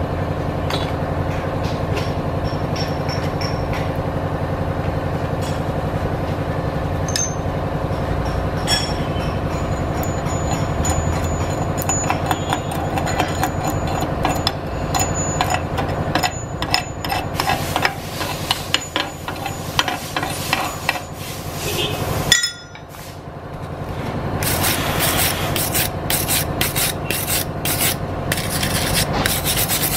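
Steel wire brush scrubbing slag off fresh stick-weld beads on a steel plate, in rapid scraping strokes over a steady hum. The scrubbing breaks off briefly about two-thirds of the way through, then resumes.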